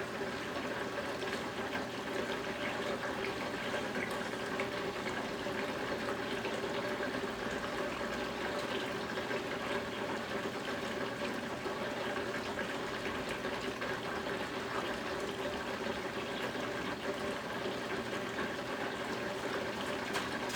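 Brastemp Ative BWG11 top-load washing machine filling its drum with water: a steady rush of running water with a faint steady hum under it.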